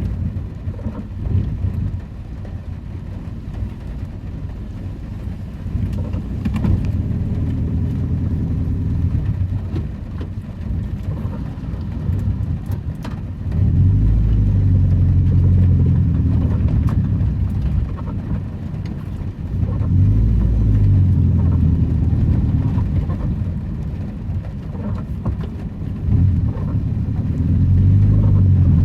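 Old Daihatsu Charade's engine running while driving. It swells louder and eases off several times as the car pulls away and changes speed, with road noise underneath.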